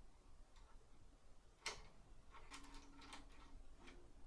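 Faint metallic clicks and ticks of an Allen key and open-end wrench working the idler-pulley bolt and nut loose on the 3D printer's X-axis belt end. One sharper click comes a little under two seconds in, then a run of small ticks.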